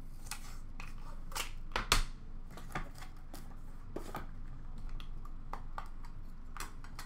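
Hands handling a plastic-wrapped trading-card pack and its cards: scattered sharp clicks and plastic crinkles, the loudest snap about two seconds in.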